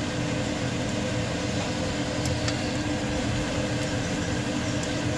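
Pork loin fillets simmering in white wine in a frying pan, under a steady, even mechanical hum like a fan.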